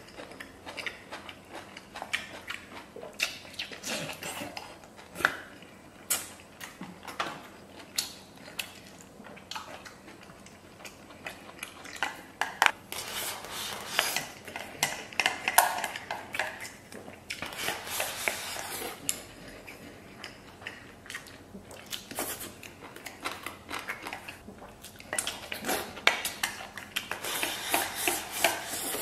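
Wooden chopsticks clicking and scraping against a stainless steel bowl as rice and noodles are shoveled into the mouth, mixed with slurping and chewing. The clicks come irregularly, with busier stretches of eating noise about halfway through and near the end.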